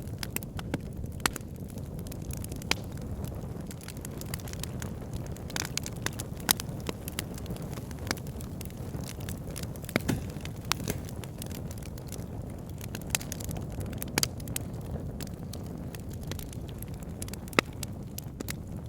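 Campfire burning: a steady low rumble of flames with irregular sharp crackles and pops of the burning wood, a few of them louder than the rest.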